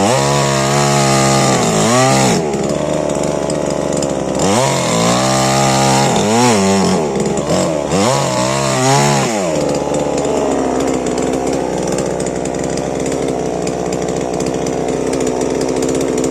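Stihl MS 881 two-stroke chainsaw revving up three times, each time rising in pitch and dropping back, then running steadily at a lower speed.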